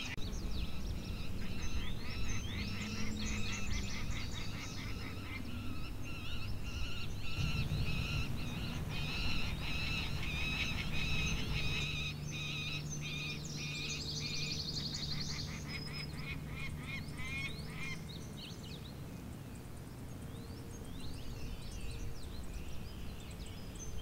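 Outdoor chorus of many small wild animals calling, with rapid chirps and trills over a low steady hum. The calls thin out in the second half.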